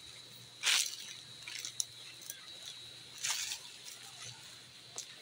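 Handfuls of granular fertilizer flung from a metal bowl, scattering onto the dry leaves and soil in short hissing swishes, the loudest about a second in and again just after three seconds.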